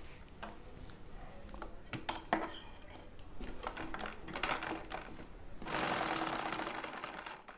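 Sewing machine stitching a seam in short runs with clicks of the mechanism, then a steadier run of about a second and a half near the end that stops abruptly.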